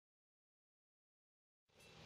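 Near silence, then outdoor background noise fading in just before the end.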